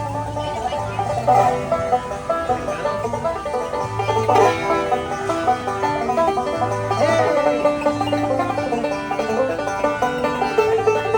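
Bluegrass music led by a banjo picking quick runs of notes over a steady bass line, with no singing.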